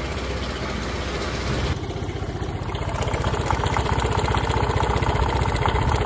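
PGO J-bubu scooter's single-cylinder four-stroke engine idling with an abnormally loud noise, which the mechanic suspects comes from a failing cam chain tensioner. It grows a little louder from about two seconds in.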